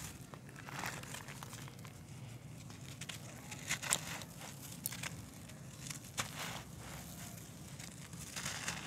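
Hands crumbling handmade lumps of dry, sandy dirt: a crunchy crackling with gritty soil trickling down through the fingers. Several sharper cracks come about four seconds in and again a little after six.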